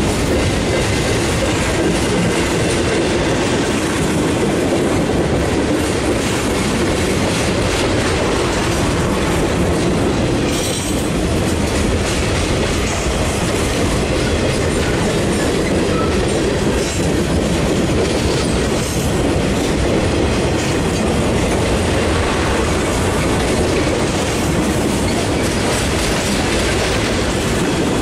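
Mixed freight train of boxcars, tank cars and hopper cars rolling past, a steady loud rumble of steel wheels on the rails.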